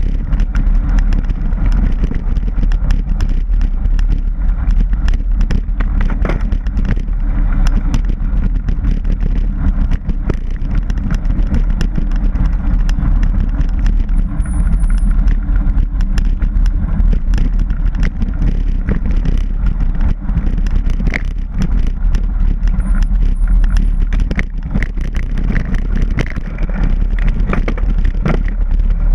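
Mountain bike riding on a dirt trail: a steady low rumble of wind and tyre noise, with frequent clicks and rattles as the bike jolts over rough ground.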